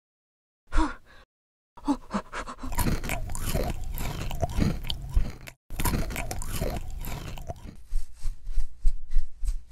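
Crunching and chewing of a crisp baked chocolate-chip cookie, dense for several seconds, then a run of quick separate crunches near the end.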